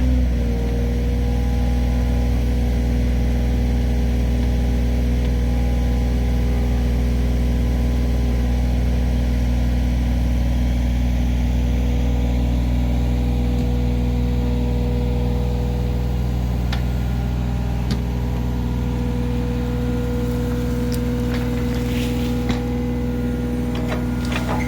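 Mini excavator's diesel engine running steadily at an even speed, with a few short clicks and ticks near the end.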